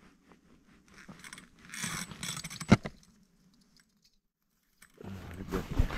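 Light rattling and clicking of handled gear, with one sharp knock just under three seconds in, then a rustling noise near the end.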